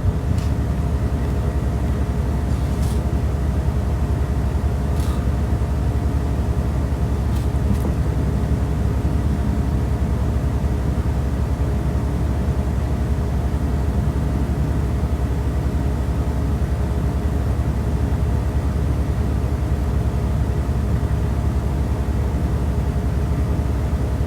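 A steady low rumble with a faint hum, unchanging throughout and with no speech.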